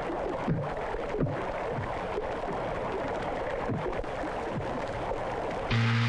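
Steady rushing of river water on a film soundtrack, with faint low falling swooshes. Near the end a loud, steady motor hum starts abruptly.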